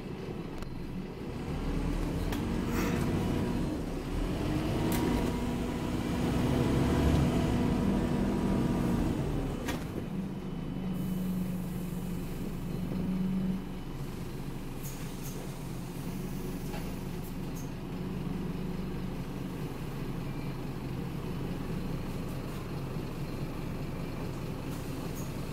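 Scania OmniCity double-decker bus heard from inside the lower deck: its five-cylinder diesel engine pulls with a steady hum for about the first ten seconds, then eases off. The bus runs on more quietly, with occasional clicks and rattles from the body.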